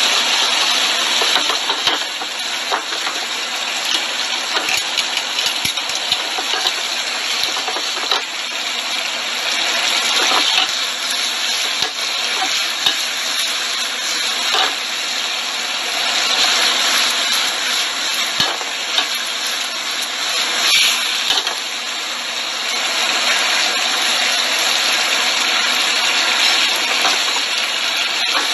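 Three-cup chicken wings sizzling and bubbling in their sauce in a frying pan over high heat, with scattered pops and crackles: the sauce is being reduced.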